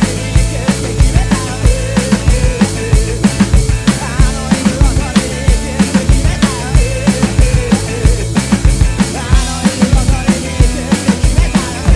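Drum kit played along to a rock recording: a fast, driving beat of kick and snare hits, steady throughout, with the song's guitars and vocals underneath.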